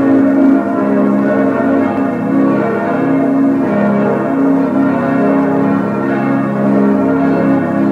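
Full peal of six bronze church bells cast by Schilling in 1958, tuned A♭°–B♭°–D♭'–F'–A♭'–B♭', all ringing together. The strokes overlap densely, so the tones never die away.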